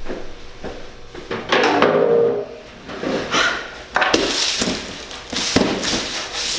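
Handling noise: irregular scraping and rustling with a few sharp knocks, as packaging is moved about in a small room.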